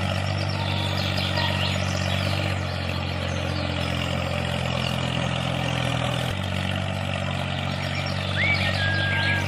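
Tractor engine running steadily with a low, even hum, its tone shifting slightly about six seconds in. A few bird chirps come in near the end.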